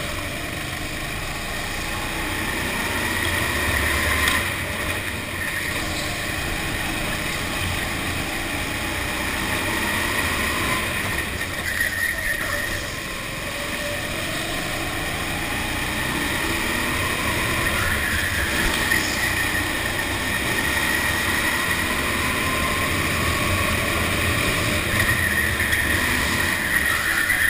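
Go-kart engine heard from on board, its pitch rising along the straights and dropping into the corners through a full lap.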